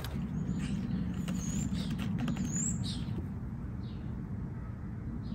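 Small birds chirping outdoors: several short high chirps in the first three seconds, some sliding upward, then a few fainter ones, over a steady low rumble.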